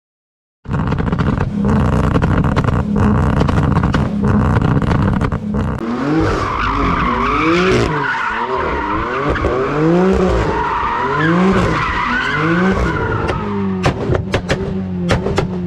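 Car engine at high revs with tyre squeal, the pitch sweeping up and down again and again in the middle. Near the end comes a series of sharp cracks.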